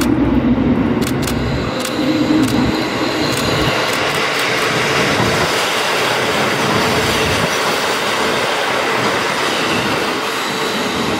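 Two KiHa 40 diesel railcars running past close by: engine rumble with a few sharp wheel clicks over the rail joints about a second in, then a steady rush of wheel and running noise as the cars go by.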